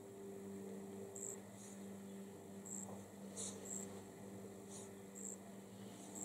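Quiet room tone: a steady low hum with faint, short, high-pitched ticks every second or so.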